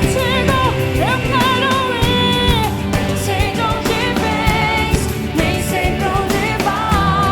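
Live gospel worship band playing, with drums and a high wordless lead line that bends and wavers with wide vibrato.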